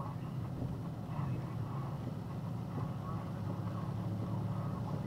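Engine and road noise of a box truck driving on a wet street, heard inside the cab: a steady low drone.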